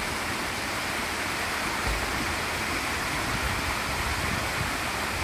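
Water rushing steadily down a rock chute and cascading into a pool, a constant hiss of falling water.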